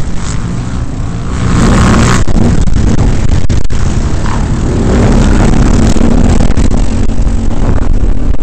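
Quad bike (ATV) engine under throttle, heard close up from the machine itself and very loud, picking up about a second and a half in and revving with rising pitch as it accelerates over rough dirt.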